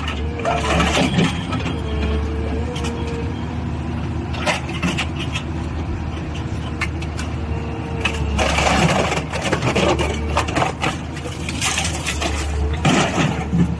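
Small hydraulic alligator shear running with a steady motor hum, while metal is cut and handled in several bursts of crunching and clanking: near the start, from about eight to ten seconds in, and again near the end.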